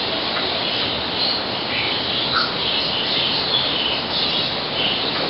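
Birds calling in the background, short calls repeating at irregular intervals over a steady hiss.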